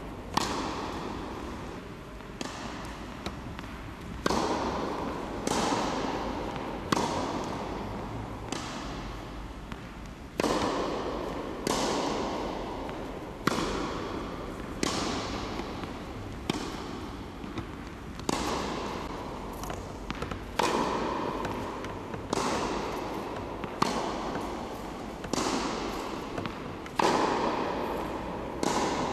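Tennis racket striking a tennis ball, a sharp hit about every second and a half, each ringing out in a long echo through the large hall.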